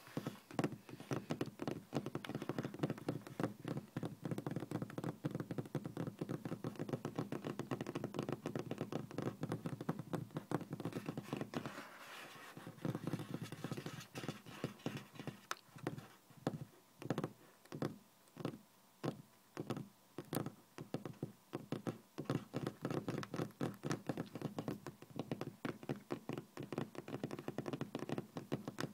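Fingernails and fingertips tapping rapidly on a hard tabletop in fast, rolling runs of taps. After a short break about twelve seconds in, the taps come in looser clusters for a while before turning dense again.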